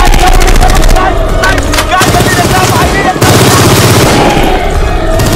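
Automatic gunfire sound effects: rapid bursts of shots, one through the first second and another about two seconds in, over a music score.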